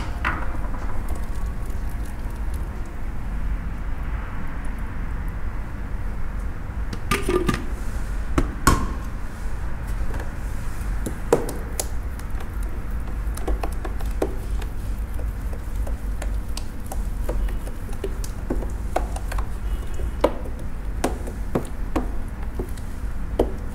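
Metal spoon stirring thick ginger dressing in a clear plastic food pan, with scattered clicks and knocks as it taps the container, over a steady low hum.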